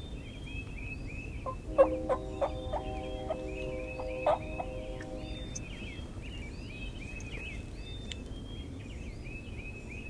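A wild turkey calls in a run of about nine notes, roughly three a second, from about one and a half to four and a half seconds in. Small songbirds chirp steadily throughout in a dawn chorus.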